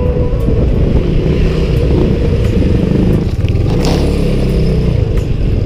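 Small motorcycle engine running as the bike rides along a street at low speed, its pitch shifting a little around the middle.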